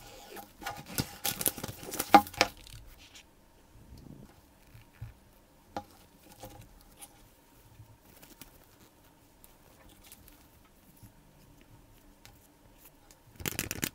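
Opening and handling an iPhone 12 mini's cardboard box and paper inserts. There is a dense run of crackling and tearing for the first two and a half seconds as the box is opened, then scattered light taps and rustles, and a short burst of rustling near the end.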